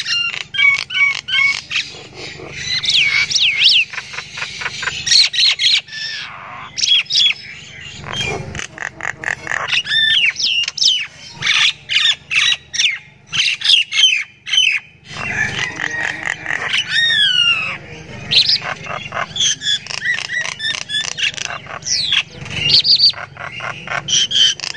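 Common myna calling: a fast, varied run of chattering notes, clicks and whistles, some sliding up or down in pitch, broken by a couple of brief pauses.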